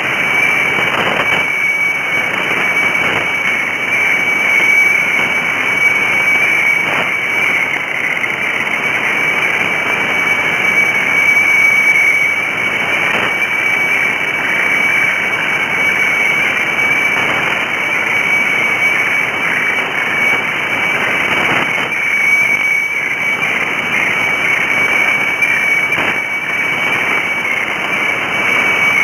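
Shortwave receiver audio of the HSW64 Bangkok radiofax (weather fax) signal on 7395 kHz: a steady high tone over heavy hiss and static, with a few faint crackles.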